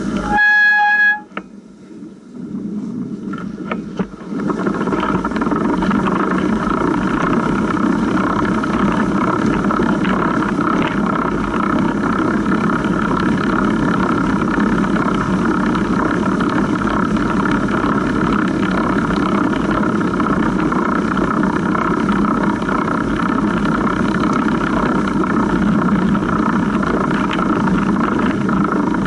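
A short pitched beep lasts about a second at the start. From about four seconds in, a longtail cargo bike rides steadily through snow: the chain runs over the idler pulley under the seat, and the tyres roll through rutted snow.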